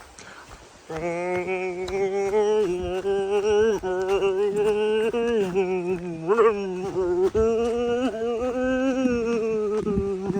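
A single voice singing in long held notes with a slight waver, starting about a second in and running on with only short breaks.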